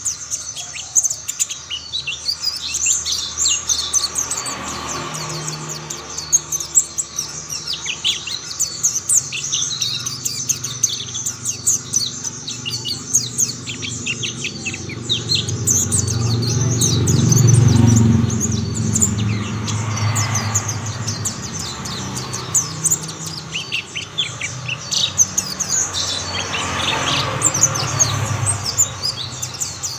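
Mountain white-eyes singing, several birds joining in: a dense run of rapid, high chirps and twitters. A low rumble swells around the middle and again near the end.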